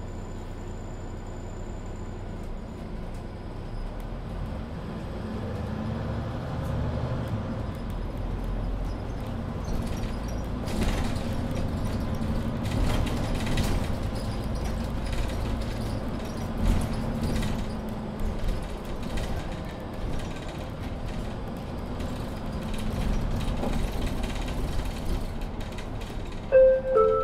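Low rumble of a Mercedes-Benz Citaro C2 Ü Hybrid bus heard inside the passenger cabin, growing louder after a few seconds, with clicks and rattles from the fittings. Near the end come two short beeps.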